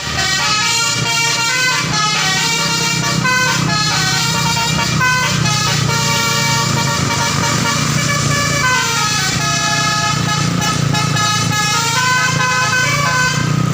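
A bus's musical telolet (basuri) horn playing a tune of stepped, shifting tones, with a pitch slide down and back up about two-thirds of the way through. A steady low hum runs underneath.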